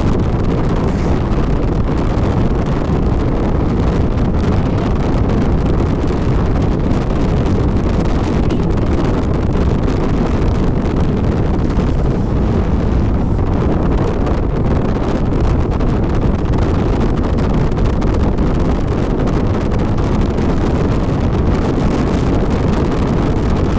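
Steady wind rushing over the microphone of a motorcycle riding at speed, with engine and road noise beneath it.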